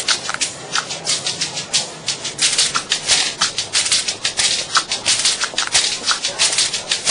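Tap shoes striking paving stones in a fast, uneven run of sharp taps, several a second.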